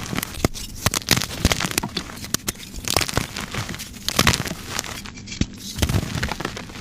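Dyed gym chalk blocks being crushed, crumbling and crunching with many irregular sharp crackles.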